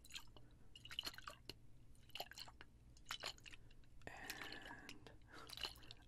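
Water moving inside a glass relish jar held close to the microphone: faint, scattered small clicks and short sloshes.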